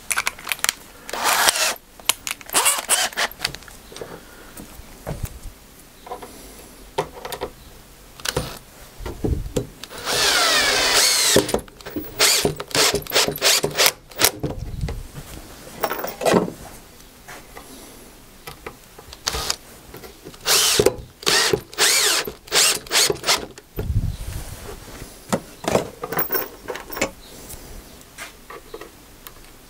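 Cordless drill-driver driving screws into a wooden board in many short bursts, with one longer run about a third of the way in where the motor's pitch rises and falls.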